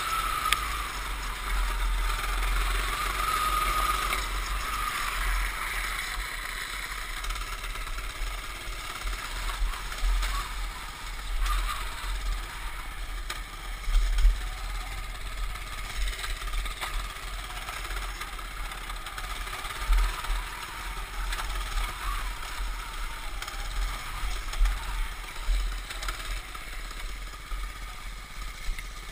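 Baja mini bike's small engine running as it is ridden over gravel and grass, with a higher engine note in the first few seconds that then drops away. Wind buffets the microphone throughout, and a few sharp knocks come through, the loudest about halfway.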